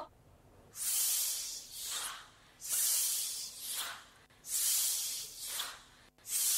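Rhythmic swishing hiss in long-short pairs, a long swish then a shorter one, repeating about every two seconds with near-silent gaps between them.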